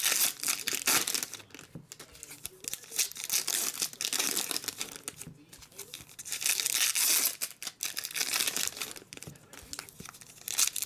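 Crimped foil trading-card pack wrappers crinkling and tearing as packs are ripped open by hand, in several bursts a few seconds apart.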